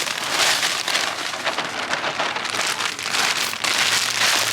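Soil being poured into a container: a dense, crackling hiss of falling grains that comes in several surges.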